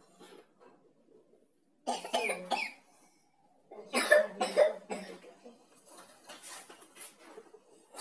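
A person coughing in two short, harsh bouts about two seconds apart, each of several quick coughs, followed by fainter scattered noises.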